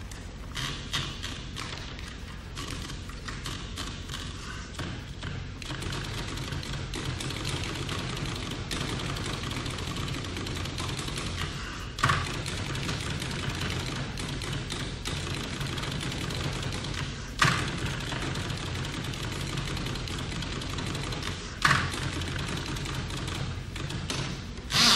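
Typewriter being typed on: a quick run of keystroke clacks, broken by four louder knocks spaced several seconds apart, the last near the end.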